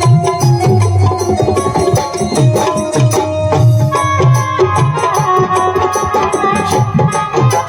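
A music group playing live at a sound check: fast tabla drumming, the low drum's strokes sliding in pitch, over held melody notes from a keyboard-type instrument.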